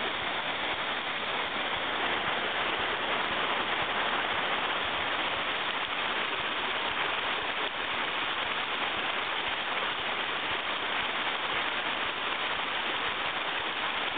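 A steady rushing noise, even and unbroken, with no distinct knocks or voices in it.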